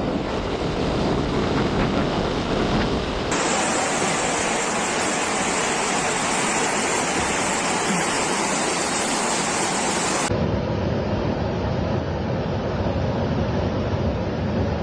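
Rushing floodwater with wind buffeting the microphone, a dense steady rush of noise. The sound changes abruptly twice, about three seconds in and about ten seconds in.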